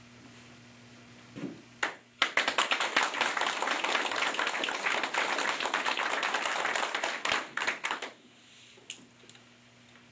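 Small audience applauding: a dense patter of hand claps that starts about two seconds in, runs about six seconds, and dies away with a few last claps.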